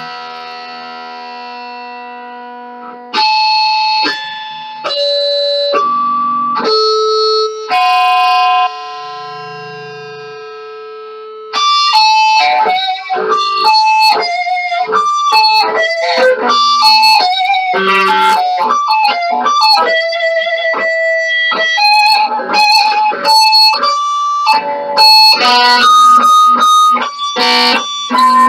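Electric guitar played solo. Long held notes ring out one after another at first, then after about twelve seconds it breaks into a fast run of single notes.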